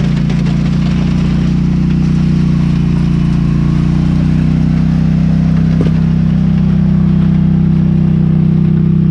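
A nearby engine idling steadily, a loud, even low hum that holds its pitch throughout.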